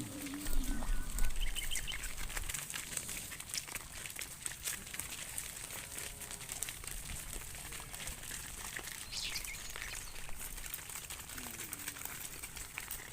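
Outdoor field ambience: a steady crackling rustle, with a low rumble in the first couple of seconds and a few faint bird chirps, one falling chirp near the end.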